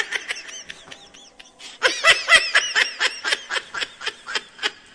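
Hearty human laughter in quick repeated 'ha' bursts: a short bout at the start, then a longer, louder run from about two seconds in.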